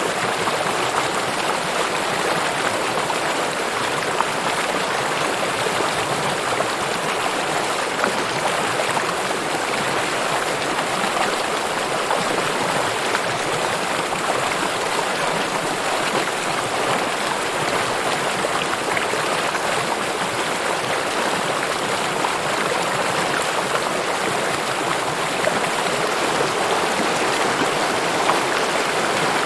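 River water flowing and babbling, a steady rushing hiss with no pauses.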